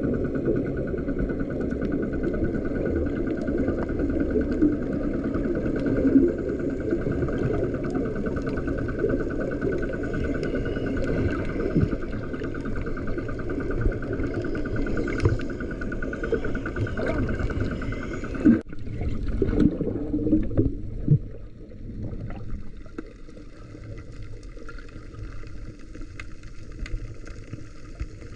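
Underwater recording: a muffled low rumble of water against the camera housing with a steady hum of a boat engine carried through the water. About two-thirds of the way through the hum stops abruptly, leaving a quieter rumble.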